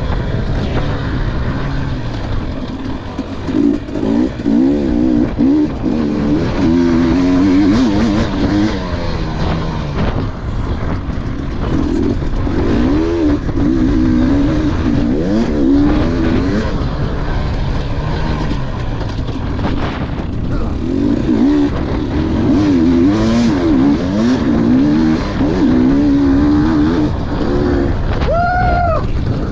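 KTM dirt bike engine racing around a motocross track, its revs climbing and dropping over and over as the rider throttles on and off through the turns and straights, with wind and rushing noise on the helmet camera. Near the end there is one brief, sharp high rev.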